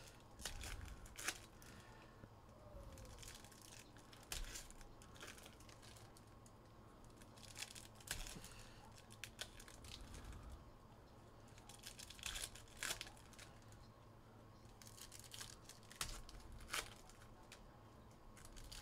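Faint tearing and crinkling of trading card pack wrappers being opened and handled, in short irregular rustles spread through the pause.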